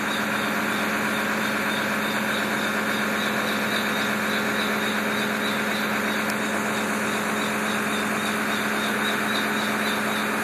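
Fire truck's aerial platform running, its engine and hydraulics giving a steady drone with a constant low hum as the basket is brought down.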